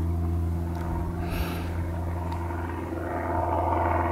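A steady low engine drone with an even, unchanging pitch, and a brief hiss about a second and a half in.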